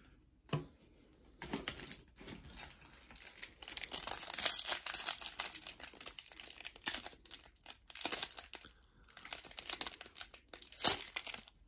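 Foil wrapper of an old Pro Set golf card pack crinkling and tearing in irregular bursts as fingers pick at it and peel it open, starting after a second or so. The aged pack is stubborn to open.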